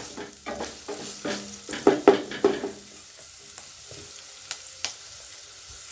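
Chopped onions sizzling in hot oil in a pan as they are stirred with a spatula: a run of quick scraping strokes for about three seconds, then quieter sizzling with a couple of taps.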